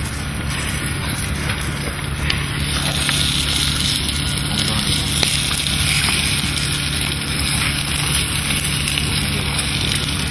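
Fire on a grill hissing steadily, with scattered small crackles.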